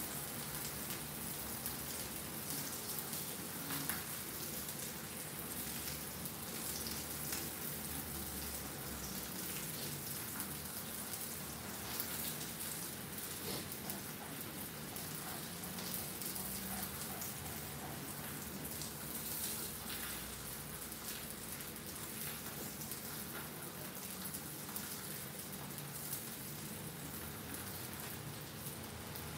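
Salmon steak sizzling in oil in a cast-iron skillet: a steady crackling hiss with fine pops throughout.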